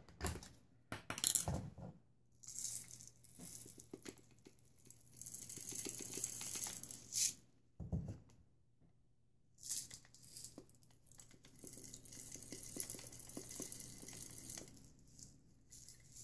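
A few knocks and clicks, then salt grains poured from a plastic bottle into the salt chamber of an electric salt and pepper grinder: a fine hissing trickle in two long pours with a short pause between them.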